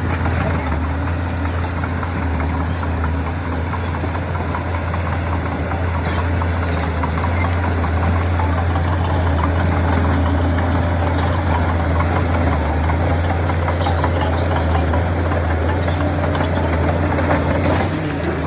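Heavy diesel earthmoving machinery running steadily with a deep low hum, a little louder in the middle, with scattered light clanks and rattles.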